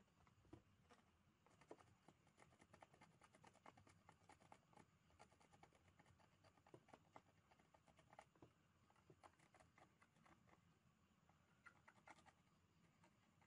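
Very faint, irregular small clicks and scratches, like light handwork with small tools or parts on a workbench, over near silence.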